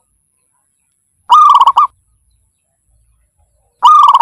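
Zebra dove calling: two short staccato coos, each a half-second run of quick rolling notes, about two and a half seconds apart.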